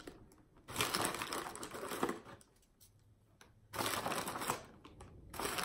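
Crinkling of the plastic wrapper inside a box of Nilla vanilla wafers as a hand digs cookies out of it, in two bouts with a short pause between.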